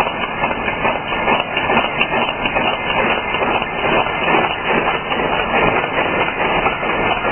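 Barbed wire making machine running, a fast, steady metallic clatter as it twists the line wires and wraps the barbs onto them.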